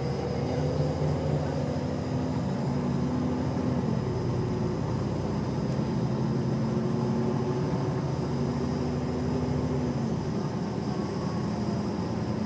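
Coach bus engine droning with tyre and road noise, heard inside the passenger cabin while cruising on a highway. The engine note shifts slightly a couple of times.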